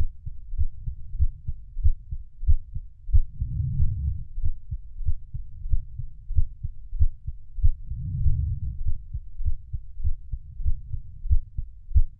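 Heartbeat sounds: low, muffled thumps beating in a steady rhythm. A low whooshing swell rises under them every four to five seconds.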